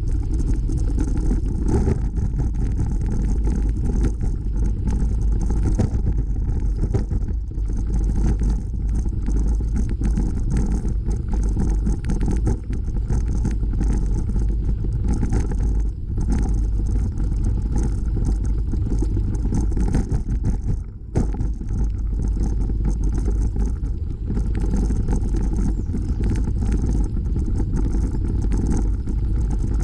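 Steady low rumble of wind buffeting the microphone and bicycle tyres rolling over a packed dirt and gravel trail while riding. It drops briefly about twenty-one seconds in.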